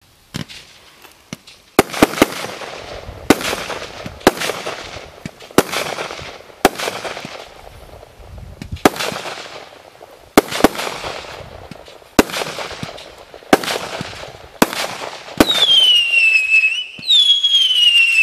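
Multi-shot consumer firework cake (SU-76 'Dancing Firework' battery) firing shot after shot, about one sharp bang a second, each trailing off in a fading crackling hiss. Near the end, whistling shells take over with a loud wavering whistle that falls in pitch.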